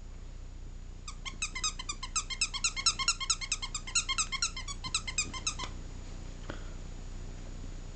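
Chihuahua puppy giving a fast run of short, high-pitched yips for about four and a half seconds, then stopping abruptly.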